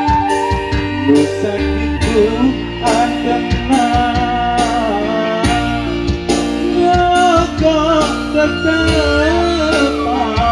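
Live pop Sunda band music: keyboard and bass over a steady drum beat, with a bending, ornamented melody line on top.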